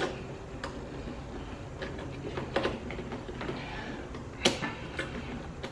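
Scattered clicks and knocks of hose fittings being handled and fitted onto the water inlet of a Kärcher K1700 electric pressure washer, plastic and metal tapping together, the loudest knock about four and a half seconds in.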